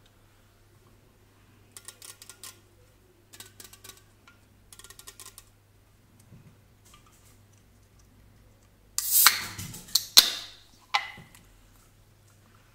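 Fingernails tapping on an aluminium drink can in three short bursts, then the can's ring-pull snapped open with a loud fizzing hiss about nine seconds in, followed by two more sharp clicks.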